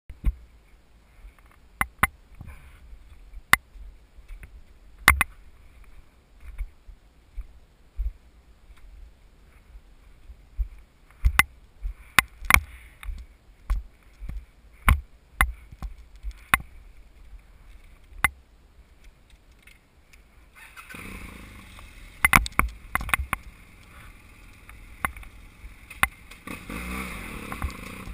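Motorcycle heard from a camera mounted on the bike. For about the first twenty seconds there are scattered sharp knocks and clicks over a faint low engine rumble. About twenty-one seconds in, the engine and wind noise rise as the bike gets moving, and the engine note climbs near the end.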